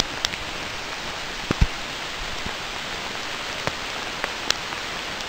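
Steady rain falling through the forest, an even hiss, with a few sharp close taps of drops landing near the microphone, the loudest about a second and a half in.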